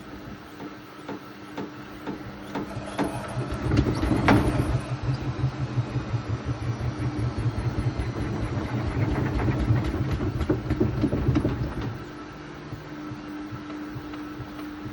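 Hoover VisionTech VTS715D21X washing machine, top panel removed, spinning an unbalanced load. After a few clicks, the drum thuds fast and rhythmically for about eight seconds, then drops to a steadier motor hum about twelve seconds in.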